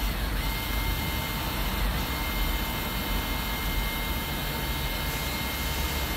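Electric parking brake motor on a Mercedes-AMG G63 brake caliper, run directly off a 12 V battery, whining steadily as it winds the caliper piston back; its pitch dips briefly twice in the first two seconds. A low steady rumble runs underneath.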